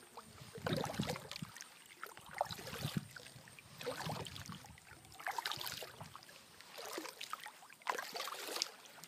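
Kayak paddle strokes through calm creek water: about six splashing, dripping strokes, one every second and a half or so.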